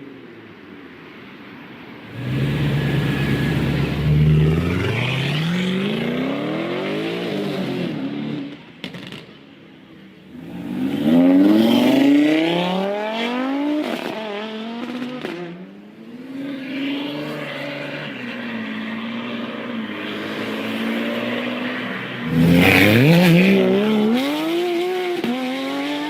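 Car engine accelerating hard again and again, its pitch climbing and dropping back as it shifts up through the gears. The loudest surges come about two, eleven and twenty-two seconds in, with a brief lull around nine seconds.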